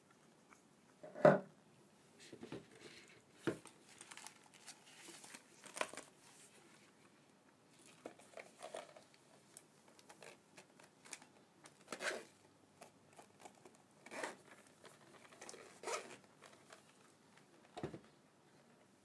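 Small zippered hard case being shut by hand: a knock about a second in, the loudest sound, then a series of short zipper rasps and handling scuffs as the zip is drawn around the case.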